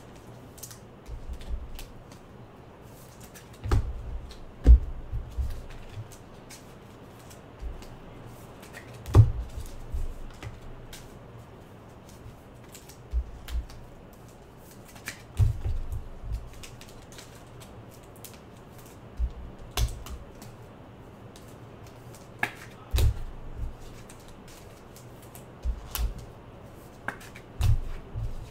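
Trading cards and card packs handled on a tabletop: irregular clicks, taps and low knocks, about one every second or two.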